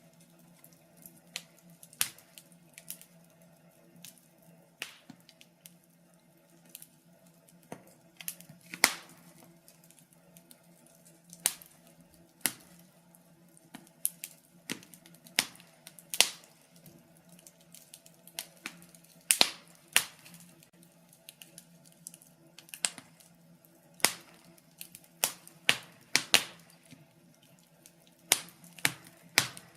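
Wood fire crackling in a fireplace: irregular sharp pops and snaps, some loud and many small, at uneven intervals, over a faint steady hum.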